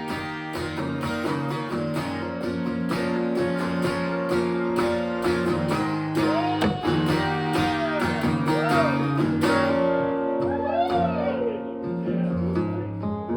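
Country song instrumental break played live: strummed acoustic guitar with a lead line that bends notes up and down, most in the middle and later part.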